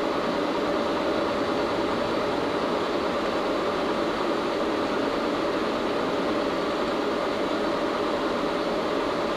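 1952 Bullard Cutmaster 36-inch vertical turret lathe running under power, a steady mechanical hum with a steady whine, as the turret head on the rail power-feeds downward.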